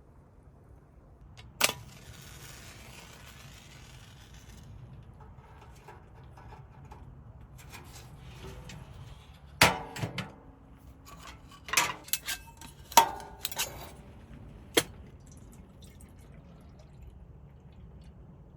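Scattered sharp clinks and knocks of hard objects being handled and set down, like camp cookware and utensils. There is one near the start, followed by a soft hiss for a few seconds, and a cluster of them in the middle.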